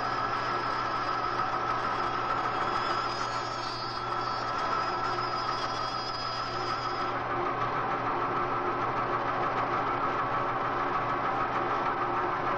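Band saw running steadily: a continuous machine hum with a steady whine.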